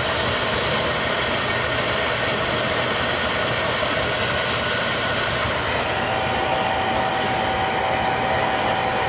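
Beckett oil burner running with a steady rushing roar and a thin, high whine that fades early on and returns about six seconds in. The whine persists after a nozzle change; it is taken for a failing fuel pump, though it could be the burner motor.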